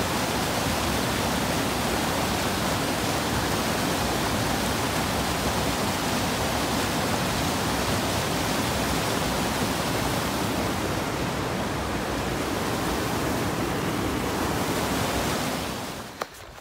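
Mountain creek rushing in white water over granite slabs: a steady, unbroken rush of water that cuts off about sixteen seconds in.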